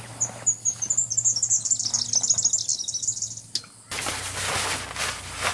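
A small bird singing a fast, high twittering run of chirps for about three seconds, dropping slightly in pitch. It cuts off abruptly and is followed by a rustling, scuffing noise.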